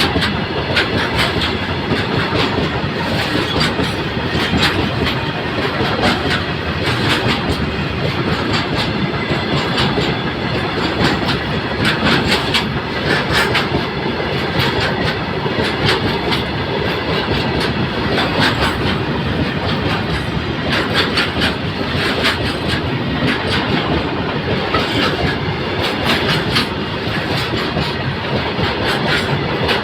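Indian Railways goods train running past: a steady rumble and rattle of freight wagons, with frequent clicks of wheels passing over rail joints.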